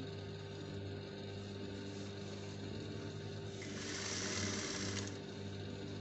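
Juki industrial sewing machine running in one burst of stitching, about a second and a half long, starting a little past halfway, over a low steady hum.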